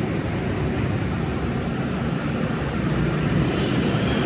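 Steady low rumble of vehicles running nearby, with no distinct knocks or clicks.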